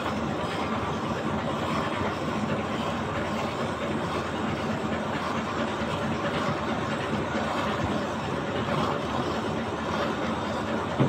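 Hand milking: streams of milk squirting into a froth-filled steel jug and bucket, a steady foamy hiss.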